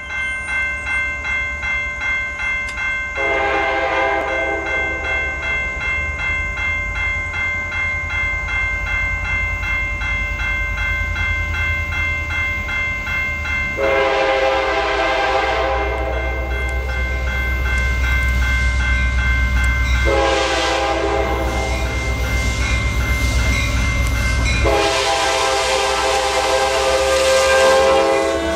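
CSX F40PH-2 diesel locomotives approaching with a low engine rumble, sounding a multi-tone air horn in a series of blasts: a short one about three seconds in, then three long blasts from about halfway on, the last running into the passing train.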